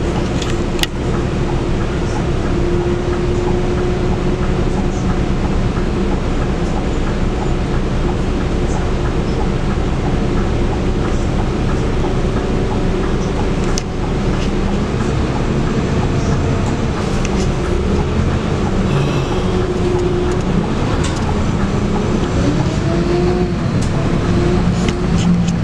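Scania K280UB bus under way, heard on board: its 9.3-litre five-cylinder DC9 diesel and ZF EcoLife automatic gearbox running over steady road noise. Toward the end the engine note rises and falls in pitch a few times as the bus speeds up and changes gear.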